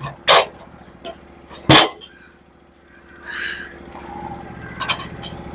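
Portable bandsaw mill's gas engine running steadily, getting louder from about the middle. Two short, loud noisy bursts come in the first two seconds, and a few clicks near the end.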